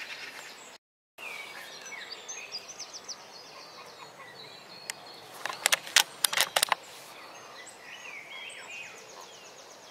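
Small birds chirping and trilling in the treetops, with a quick rattle of sharp clicks, about seven a second, between five and a half and seven seconds in. The sound breaks off completely for a moment about a second in.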